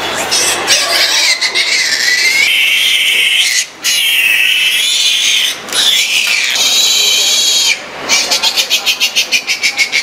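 A piglet squealing loudly while held in a person's hands: long, high-pitched screams broken by two short pauses, turning in the last two seconds into rapid short squeals, about five a second.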